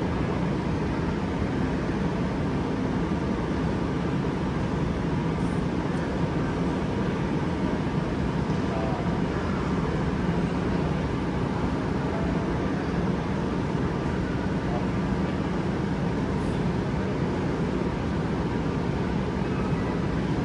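Steady background din of a busy indoor shopping mall: a constant low rumble of hubbub, with no clear voices or events standing out.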